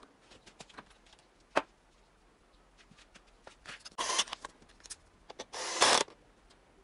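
Small cordless screwdriver running in two short bursts, about four and about five and a half seconds in, driving in bolts. Light clicks and one sharp click come first as the tool and parts are handled.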